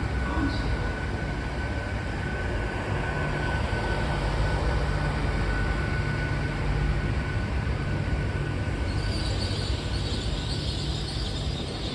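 Train running with a steady low rumble; a thin high tone fades away about halfway through, and a hiss comes in near the end.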